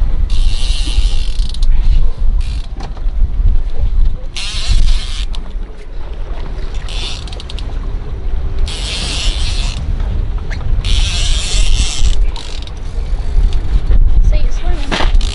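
Heavy conventional fishing reel whirring in short bursts of about a second, repeated every couple of seconds as line is cranked in on a fish, over a steady low rumble of wind and water.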